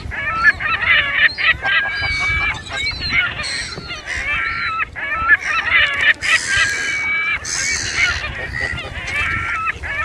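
A flock of waterbirds gathered for food, calling over one another without a break: many short, overlapping squawks and cries from gulls and geese.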